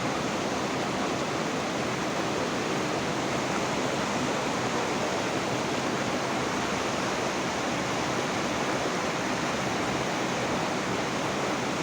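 Steady rushing of water, an even hiss that holds at the same level throughout.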